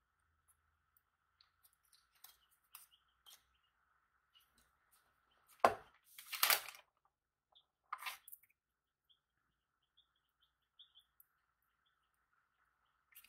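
Cleanup handling on a tabletop: scattered small clicks and rustles, a sharp thump about five and a half seconds in followed at once by a rustle, and another rustle about eight seconds in.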